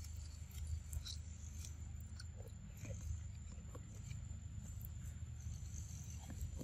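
Macaques chewing and biting corn on the cob: faint scattered clicks and crunches over a low steady rumble.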